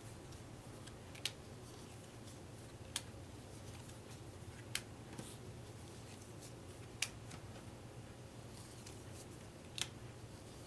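Sushi Go playing cards handled and laid down one at a time: five sharp, light clicks about two seconds apart over a faint steady room hum.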